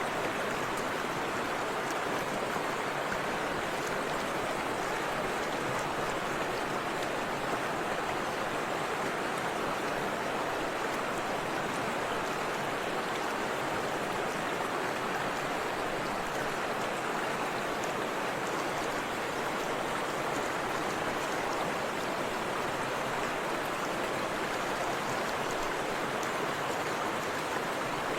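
Forest river water flowing and splashing over a small waterfall, a steady continuous rush.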